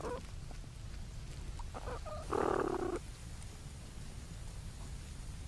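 Young platypuses in the nesting chamber, heard through a microphone inside the burrow: a few short, faint squeaky calls and a louder rough, noisy sound about two and a half seconds in, over a low steady rumble.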